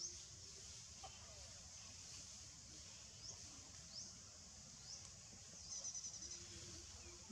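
Faint outdoor ambience: small birds giving short, high, upward-sweeping chirps about once a second, with a quick rapid trill a little before the end, over a steady high hiss and a low rumble.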